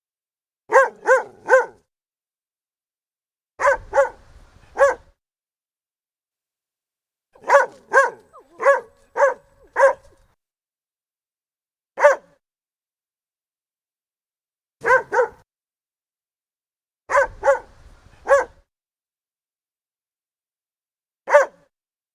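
Dalmatian barking in short clusters of one to five sharp barks, with silent gaps of one to three seconds between the clusters.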